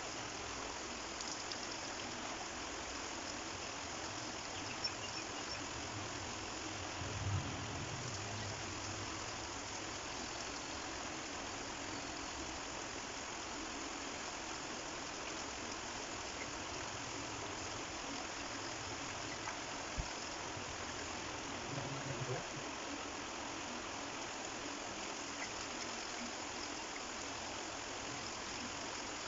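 Shallow stream flowing steadily, an even rushing of water, with a few brief low thumps.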